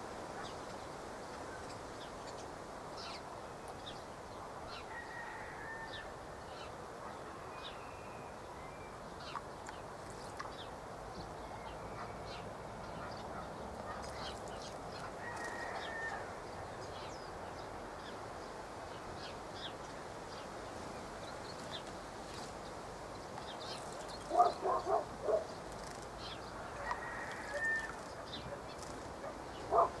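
Water dripping from a garden tap into a shallow stone basin, over a steady hiss, with a few short high bird notes. About 24 seconds in, a larger bird gives four loud calls in quick succession.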